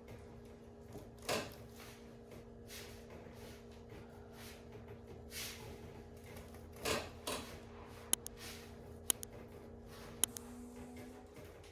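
Soft rustling movements and a few sharp clicks over a faint steady hum.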